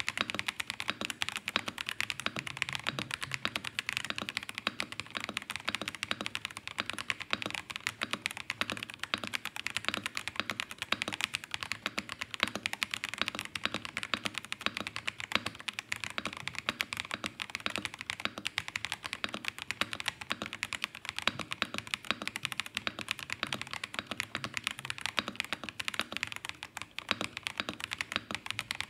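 Fast, continuous two-handed typing on a KZZI K75 Pro 75% mechanical keyboard in stock form, with its stock Moment switches: a dense, unbroken stream of key clicks.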